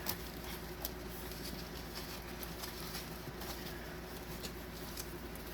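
Faint handling noise, a few light clicks and rustles, over a steady low room hum.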